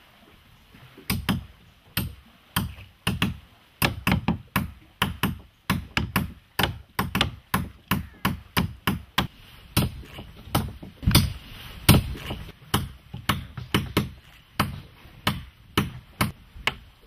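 A mallet striking a pointed tool, driving plugs of packed coconut fibre into the stitch holes of a sewn wooden boat's hull. It makes a steady run of knocks, two or three a second, starting about a second in.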